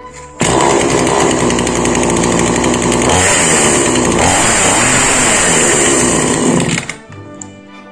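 Chainsaw with a freshly fitted and tensioned chain, run briefly as a test: it starts suddenly about half a second in, runs steadily and very noisy for about six seconds, then cuts off abruptly.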